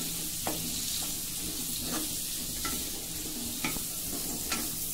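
Sliced onions sizzling in hot oil in a steel kadhai, with a wooden spatula scraping and knocking against the pan about five times as they are stirred.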